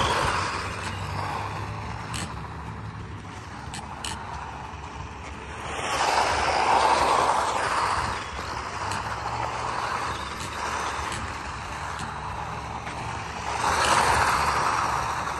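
Electric 1/10-scale Tamiya XV-01 rally car sliding and spinning its wheels on loose dirt, giving a hiss of sprayed grit. It swells loudly three times as the car slides close by: at the start, midway and near the end.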